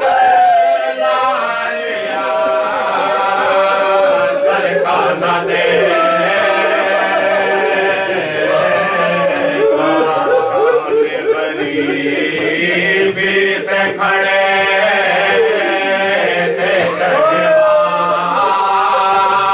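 Men's voices chanting a marsiya, a Shia elegy, without instruments, in long melodic phrases that glide up and down.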